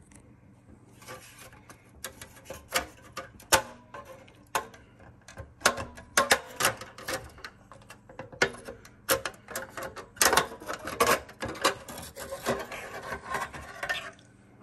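A NAS drive backplane board being worked loose and slid out of its sheet-metal drive cage: a run of sharp clicks and knocks with scraping between them, thicker in the second half.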